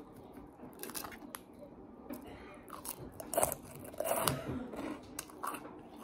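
Close-up chewing of crispy puffed pork rinds: irregular crunches and wet mouth sounds, the loudest bites about three and a half and four seconds in.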